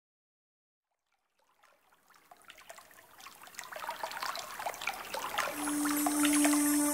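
Water trickling and dripping, fading in from silence and growing steadily louder. About five and a half seconds in, a steady low droning tone joins it.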